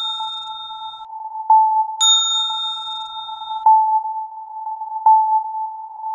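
Electronic sound-design bed: a steady synth tone with soft pulses every second or so. A bright notification-style bell ding rings out for about a second and a half, one still ringing at the start and a fresh one about two seconds in.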